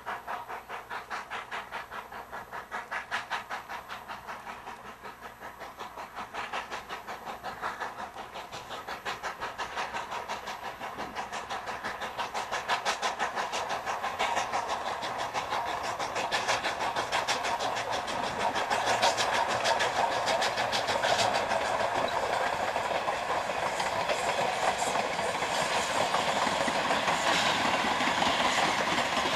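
Steam locomotive exhaust chuffing in a steady rhythm of about two to three beats a second, growing steadily louder as the train approaches.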